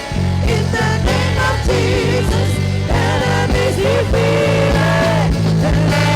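Live church praise music: a band with bass, guitar and a steady beat, with sung melody over it.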